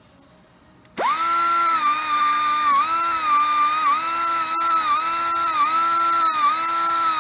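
A power drill starts about a second in and runs steadily, its motor whine sagging slightly in pitch about once a second as it is loaded while cleaning out the king pin bore of a truck's front axle.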